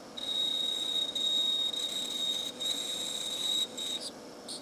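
Lathe boring out a bronze bushing with a small boring bar, in sped-up footage: a steady high-pitched whistle from the cut, breaking off briefly three times and stopping about four seconds in, followed by a couple of light ticks.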